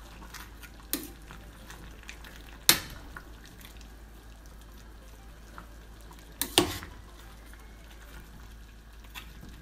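A metal spoon stirring soup in a stainless-steel saucepan, clinking against the pan a few times; the sharpest clink comes about three seconds in. A faint steady hiss sits under the clinks.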